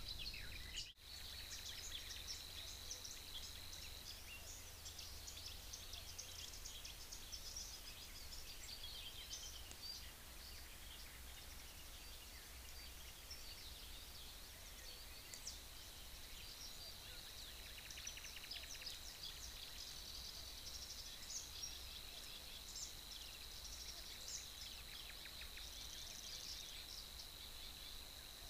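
Small birds singing faintly, many short high chirps over a steady hiss and a thin, steady high whine, with a brief dropout about a second in.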